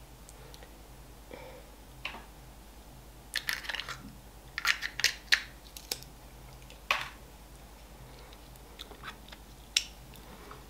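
Foil seal crinkling as it is peeled off a jar of Milka chocolate spread, with a spoon clicking and scraping on the jar. It comes as a scattering of short crackles and sharp clicks with quiet gaps between them.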